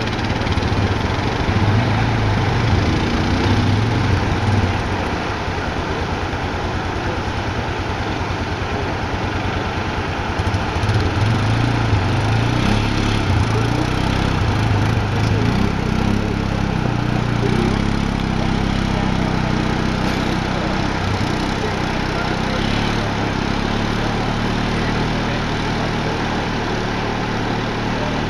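Kawasaki KLR650 dual-sport motorcycle's single-cylinder engine running as it pulls away up a dirt track, followed by a four-wheeler ATV's engine running as it heads up the same track.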